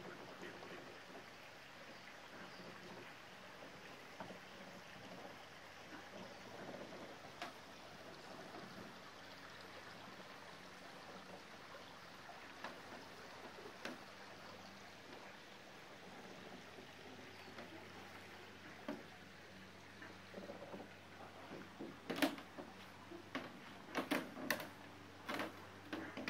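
Faint, steady outdoor background noise with a few soft knocks, then a quick run of sharp taps and clicks over the last four seconds or so.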